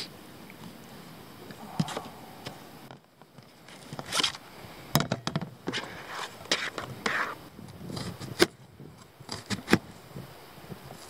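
Irregular knife scrapes, taps and plastic crackles of cutting food by hand: a kitchen knife slicing pork on a thin flexible plastic cutting sheet, the sheet handled to tip the meat into a stainless steel bowl, then the knife cutting an onion.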